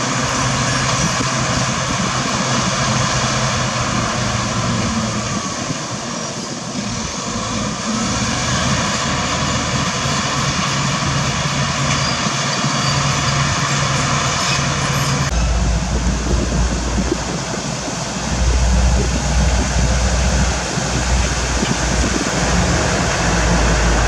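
Heavy diesel engines of a CAT 336D2 excavator and a Komatsu bulldozer running steadily. About fifteen seconds in, the sound switches abruptly to a Mitsubishi Fuso 220 PS dump truck's diesel engine, a deep low rumble as the truck drives up.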